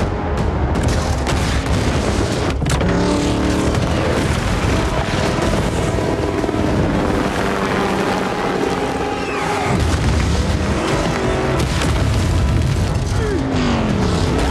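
Action-movie sound mix: a car engine revving hard, rising and falling in pitch, with heavy booms and impacts over a dramatic score.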